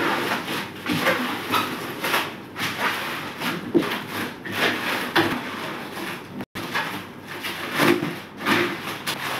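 Protective plastic film being peeled and pulled off aluminium composite panel wardrobe doors: a series of noisy tearing strokes, about two a second, with a brief gap about two-thirds of the way through.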